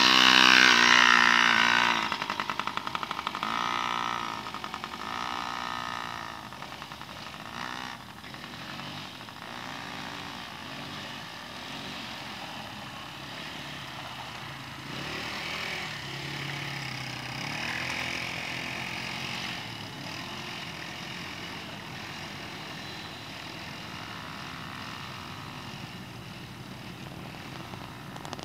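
Small youth ATV engine revving up and down as it rides by, loudest in the first couple of seconds as it passes close, then fading, with the engine note swelling again now and then as it circles farther off.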